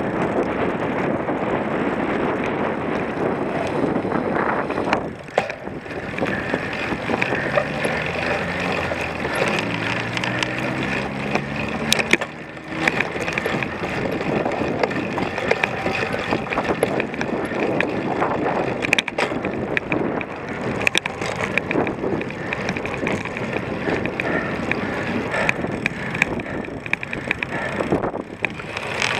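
Cyclocross bike ridden over a rough course, with a steady rush of wind and tyre noise and scattered rattles and knocks from the bike. For a few seconds near the middle, a tone steps upward in pitch.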